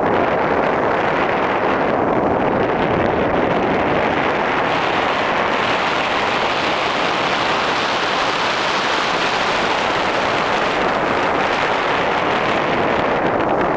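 Steady rush of wind buffeting the microphone of a pole-mounted camera on a tandem paraglider in flight, growing hissier in the middle.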